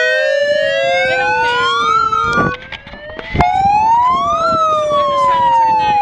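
Two handheld megaphones sounding their siren settings: two wailing tones sweep up and down over a couple of seconds each, overlapping and out of step. About two and a half seconds in they briefly drop away, then come back in with a sharp click.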